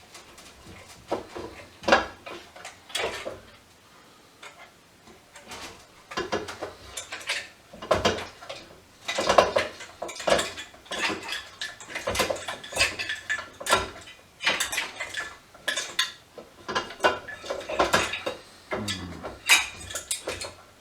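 Small metal parts and hand tools clinking and clattering in irregular bursts as salvaged electrical parts are taken apart by hand, with a brief lull about four seconds in.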